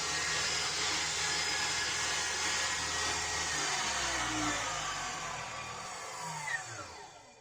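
Hyundai HYTS1800E table saw's motor and blade running steadily with no cut. About three and a half seconds in it is switched off and spins down with a falling whine, stopping near the end.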